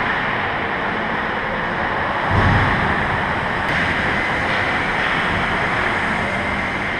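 Steady rushing noise of an indoor ice hockey rink during play, with a low thump about two and a half seconds in.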